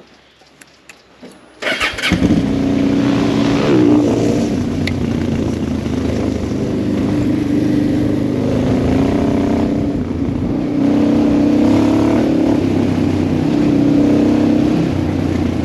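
Honda Transalp 700's V-twin engine, fitted with a decat header, running hard as the motorcycle rides along a gravel track, the engine note rising and falling with the throttle. It comes in suddenly about a second and a half in, after a near-quiet start with a few faint clicks.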